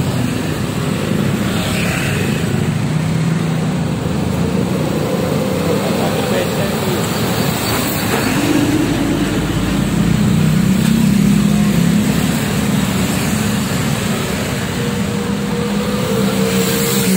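Busy road traffic passing close by: small motorbike engines and cars running past. A heavy flatbed truck's engine passes loudest around ten seconds in.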